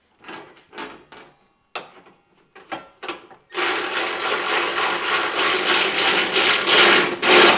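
A handheld power tool is triggered in several short blips, then runs steadily for about four seconds, stops for a moment near the end and starts again.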